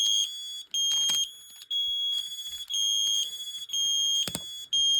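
Several smoke alarms sounding together in test: a loud high-pitched beep about once a second, with a faster pulsing alarm between the beeps. A couple of short knocks come through, about one and four seconds in.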